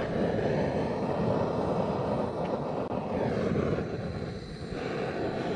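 Handheld propane torch burning with a steady hissing flame as it is held to charcoal briquettes in a chimney starter to light them.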